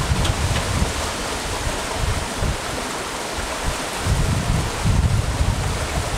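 Wind buffeting the microphone in irregular low gusts, strongest about four to five seconds in, over a steady rushing hiss.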